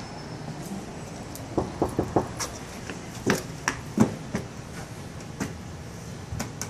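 Irregular light taps and knocks, about a dozen scattered over several seconds: a toddler's hands patting a glass door and his shoes scuffing on a ribbed metal threshold, over a steady background noise.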